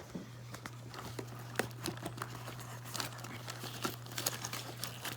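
Rustling and scattered light clicks of things being handled while searching for a screwdriver, over a steady low hum.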